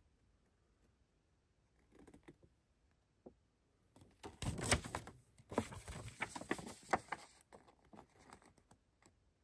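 Paper booklet pages and glossy fold-out inserts being handled, turned and unfolded: a rustle and crinkle of paper with scattered light clicks. It is loudest from about four to seven and a half seconds in.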